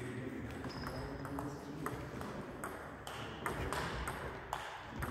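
Table tennis rally: the ball clicking sharply off the players' bats and the table in quick, fairly regular alternation, about two to three hits a second.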